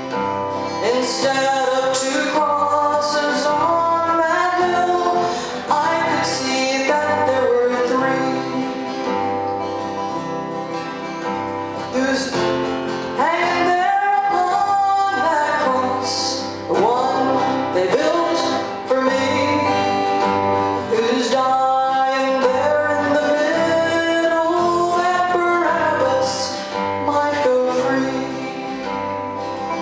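A woman singing a song solo to her own acoustic guitar accompaniment, the vocal lines rising and falling in phrases a few seconds long over the steady guitar.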